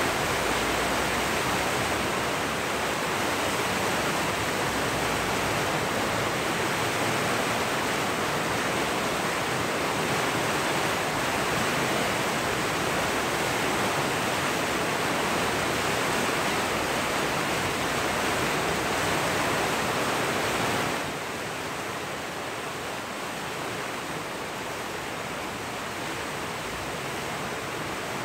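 The South Fork Yuba River in flood, white water rushing in a steady, dense wash of noise. About 21 seconds in it becomes a little quieter and duller.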